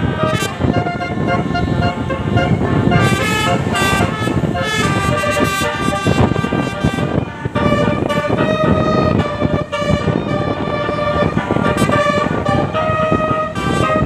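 Basuri telolet horn on a bus playing a tune: a long run of horn notes stepping up and down in pitch, some short, some held for about a second.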